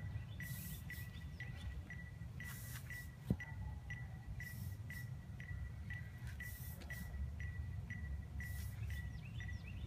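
Outdoor ambience on a leafy street: a small chirp repeating about twice a second, with short hissy bursts every couple of seconds over a low rumble. There is one sharp click about a third of the way in.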